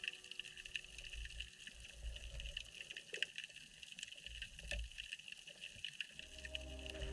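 Underwater ambience picked up by a GoPro in its housing in shallow water: a steady crackle of small clicks over a low, uneven rumble. Background music fades back in near the end.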